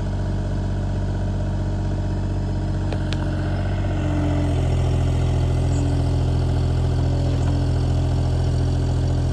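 Bobcat E35 mini excavator's diesel engine running steadily, growing a little louder about four and a half seconds in as its hydraulics swing the log.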